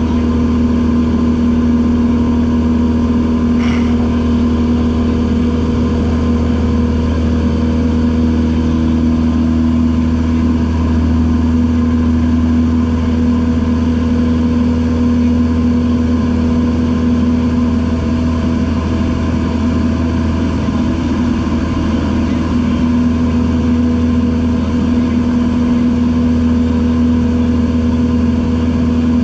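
Single-engine light aircraft's piston engine and propeller droning steadily in level cruise, heard from inside the cockpit: a constant low rumble with a strong steady hum that never changes in pitch or loudness.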